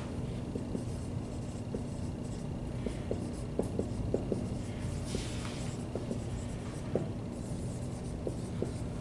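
Dry-erase marker writing on a whiteboard: short taps and scratchy strokes of the felt tip, with a longer stroke about five seconds in, over a steady low hum.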